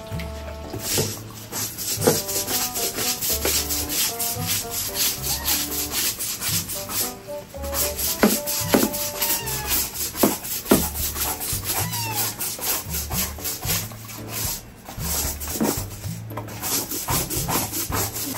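Stiff-bristled deck brush scrubbing wet wooden deck tiles in quick, repeated back-and-forth strokes.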